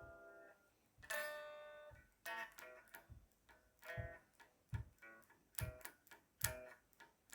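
Guitar strummed without singing: a chord rings out about a second in, then quicker rhythmic strumming with sharp percussive strokes from about four seconds in.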